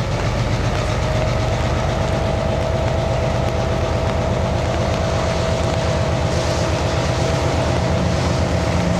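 An EMD SW1500 diesel switcher locomotive rolls slowly toward the listener with its engine throbbing steadily. A thin steady whine sets in about a second in.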